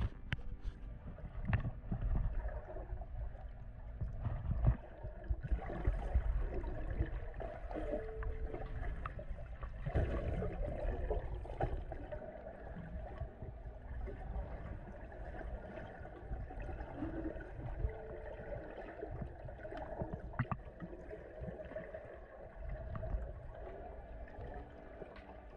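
Muffled underwater water noise picked up through a submerged action camera's housing in a river: gurgling and low rumbling, with scattered knocks.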